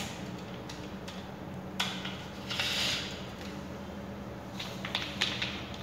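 Handling noise from cables and a plastic surface-mount wall socket box: a few small clicks and a brief scraping rustle about halfway through, over a steady low hum.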